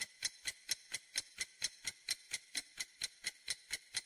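Countdown-timer ticking sound effect: a steady clock-like tick, about four to five ticks a second.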